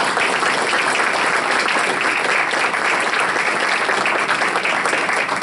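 A room of people applauding steadily.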